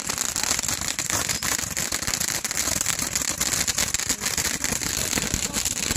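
Handheld bundles of firework tubes firing together, a dense, continuous rattle of rapid pops and crackles with no break.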